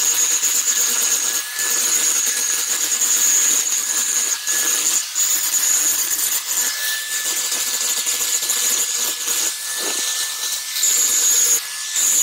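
Electric angle grinder running with its disc against a rusty steel C clamp, grinding the metal: a steady high whine over a harsh grinding noise, dipping briefly several times as the disc eases off.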